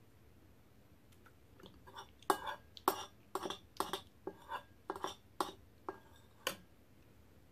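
Metal spoon clinking and scraping against a glass bowl while scooping red bean porridge. A string of light clinks, a few ringing briefly, starts a couple of seconds in and stops well before the end.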